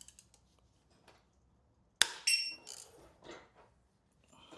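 Sharp metallic clink that rings briefly about two seconds in, followed by a few lighter metal taps: loose metal parts and tools being handled and set down on a hard surface.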